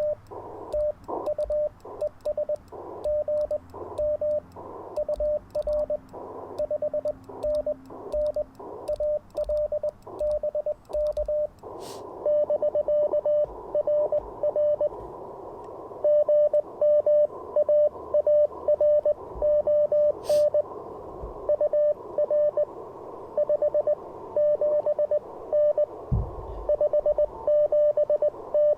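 Morse code (CW) tones near 600 Hz keyed on and off from the Icom IC-705 transceiver's speaker, over band hiss. About twelve seconds in, a click is followed by louder hiss, and the dits and dahs come louder and crisper. A low thump sounds near the end.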